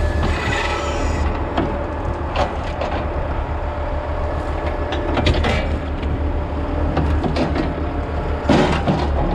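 Tractor engine running steadily, driving a bale wrapper, with scattered clanks and knocks from the machinery and a louder rattle about eight and a half seconds in.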